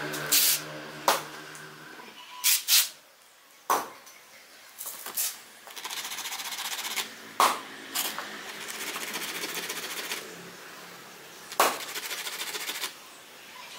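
Scattered sharp clicks and taps as small wooden pieces are handled and set down on a worktable, over a steady mechanical hum that fades out after about two and a half seconds.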